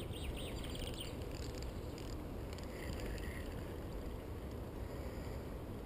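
Steady low rumble of wind on the GoPro's microphone, with a few faint high chirps in the first half.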